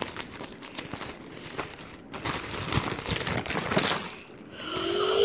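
Parcel packaging crinkling and rustling as it is handled and torn open, with irregular crackles that grow busier in the middle.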